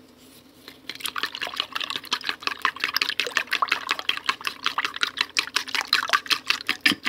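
A pair of chopsticks whisking raw eggs in a bowl: rapid, rhythmic beating and sloshing that starts about a second in.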